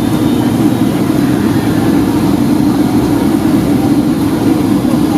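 Steady cabin noise of a Boeing 757-200 in flight on its descent: its Rolls-Royce RB211 engines and the airflow make a continuous, even, low-pitched noise.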